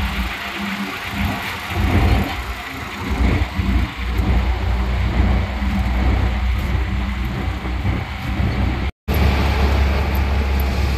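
Auto-rickshaw in motion, heard from inside its open cabin in a road tunnel: steady engine rumble with road and wind noise and a steady hum. The sound cuts out for an instant near the end.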